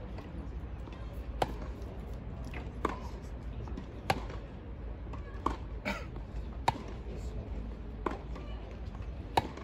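Tennis ball struck back and forth with rackets in a baseline warm-up rally: sharp pops about every one to one and a half seconds, some loud and some fainter.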